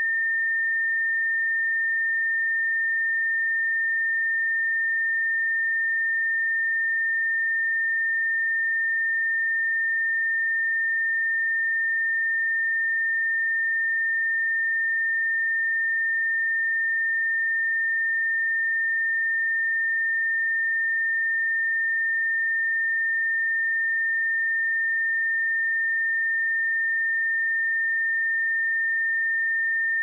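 Pure sine-wave test tone at 1812 Hz, one steady unchanging high-pitched beep used to check speakers or headphones.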